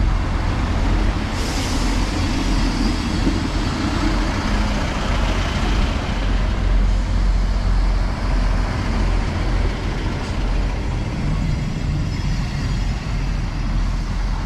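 Class 158 diesel multiple unit idling with a steady low rumble, with a short hiss about a second and a half in.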